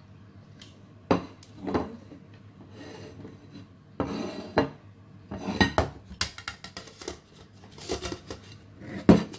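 A ceramic plate and an aluminium steamer pan knocking and clattering against each other and the tabletop while the plate is laid over the pan to turn out a steamed cake. The knocks are separate and sharp, and the loudest comes near the end.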